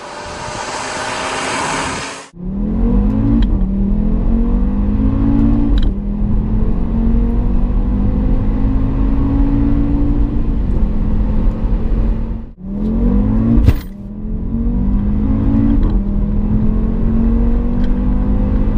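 Audi RS3's 2.5-litre turbocharged five-cylinder engine. For the first two seconds it is heard from outside as the car comes up the road at speed. Then it is heard inside the cabin in two full-throttle acceleration runs, the note climbing in pitch and dropping abruptly at each quick upshift of the dual-clutch gearbox, with a sharp crack at one shift about 14 seconds in.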